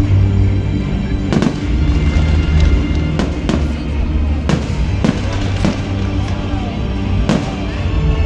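Fireworks display: a string of sharp bangs from shells bursting overhead, roughly one every half second to second, over loud music with a heavy bass.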